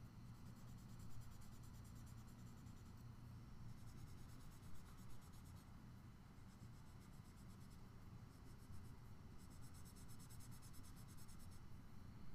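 Faint shading strokes on drawing paper: a graphite-tipped drawing tool rubbing back and forth across the sheet, over a low steady hum.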